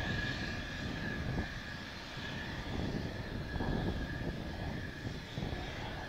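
Single General Electric F110 turbofan of a Mitsubishi F-2B fighter running at idle, a steady high whine over a low rumble, with gusting wind buffeting the microphone.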